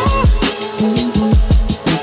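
Background music with a steady beat of deep kick drums under a melody line.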